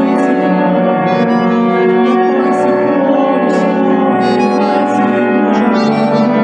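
Music played by an ensemble: sustained chords that hold steady without a break.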